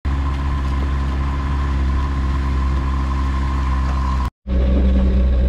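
Self-propelled high-clearance crop sprayer's engine running at a steady speed while spraying, with a steady high whine alongside. The sound breaks off for an instant a little past four seconds in, then the engine carries on without the whine.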